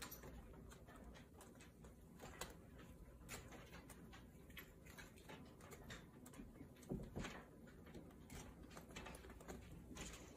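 Quiet room with faint scattered scratches and clicks: a kitten's claws catching and scraping on a woven wall rug as it climbs. The loudest scrape comes about two-thirds of the way through.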